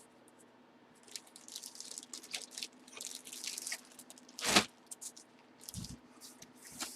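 Trading cards and their plastic sleeves and holders being handled: light crinkling and rustling, a sharper plastic click about four and a half seconds in, and a soft thump near six seconds.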